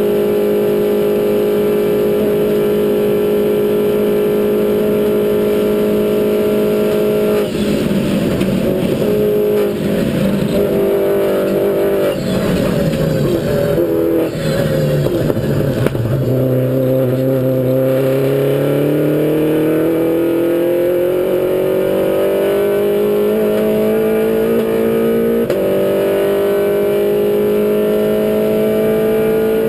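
Mini Cooper race car's engine heard from inside the cockpit at racing speed: held at high revs, then the note breaks up and drops as the car slows through a corner, then pulls hard with the pitch climbing through the gears, one upshift briefly dropping it before it climbs again.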